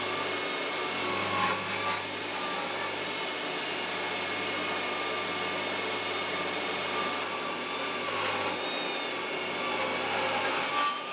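Small job-site table saw running and ripping a sapele board lengthwise: a steady motor whine under the noise of the blade cutting, which shifts a little a few times as the board is fed through.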